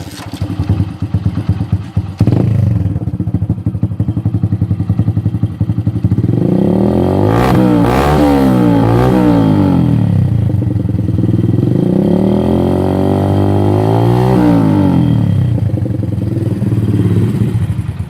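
Hero Splendor's single-cylinder four-stroke engine through an aftermarket Daytona exhaust. It idles with a rapid beat, is revved up and down in quick blips from about six seconds in and again a few seconds later, then settles back to idle and stops near the end.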